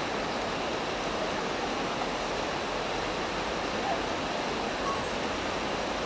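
River water rushing steadily, an even wash of flowing-water noise.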